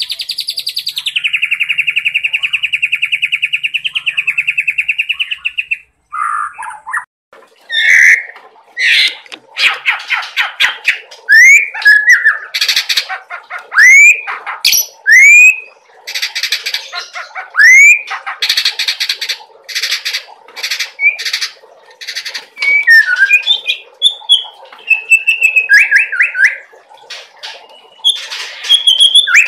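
White-rumped shama (murai batu) singing: a long, rapid buzzing trill that drops in pitch about a second in and stops at about six seconds, then after a short pause a loud run of quick chattering notes and sharp rising whistles.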